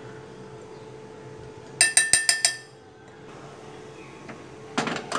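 A steel spoon clinks five times in quick succession against a stainless-steel pot, each strike ringing briefly. Near the end come a couple of short, sharper knocks.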